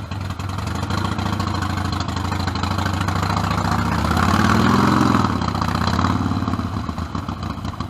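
Harley-Davidson Forty-Eight's air-cooled V-twin, fitted with an aftermarket exhaust, running as the bike pulls away. The engine note builds, loudest and highest about five seconds in, then eases off.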